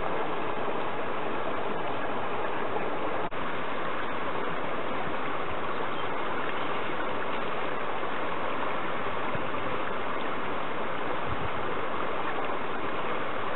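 Steady rushing and splashing water: a jet from a hose nozzle striking a curved aluminium bucket, over the flow of a small stream. The sound breaks off for an instant about three seconds in.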